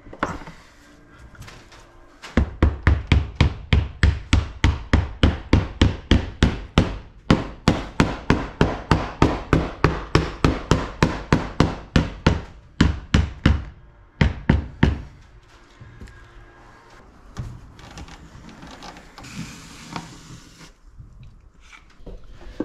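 Claw hammer driving epoxy-coated wooden splines into a groove in a wooden boat's cabin side: quick, even blows, about four a second, with a few short pauses. The blows stop about fifteen seconds in, giving way to fainter, scattered knocks and handling sounds.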